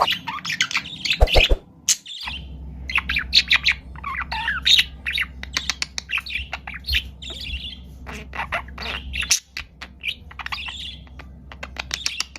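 Budgerigars chattering and warbling: rapid chirps, squawks and trills that come thick and fast, with short pauses. A faint steady low hum sits beneath them.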